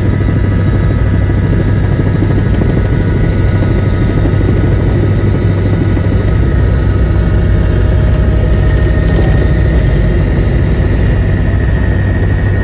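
Helicopter in flight: a loud, steady drone of rotor and engine with a steady high whine over it.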